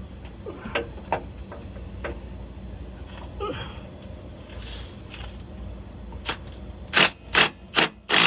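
Hand ratchet wrench clicking as a nut is snugged down on the starter motor, with scattered clicks at first and four louder strokes near the end as it is tightened the last bit.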